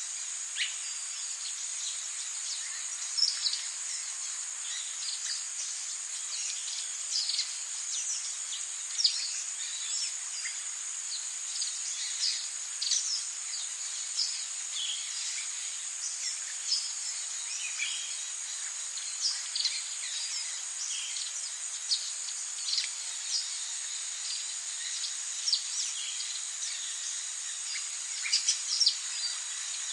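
Forest ambience: a steady high-pitched insect drone, with many short bird chirps scattered throughout.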